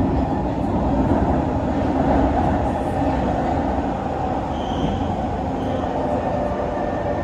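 Inside a Kawasaki C151 metro car running at speed through a tunnel: a steady rumble of wheels on rail and running gear. A brief high squeal comes twice, about five and six seconds in.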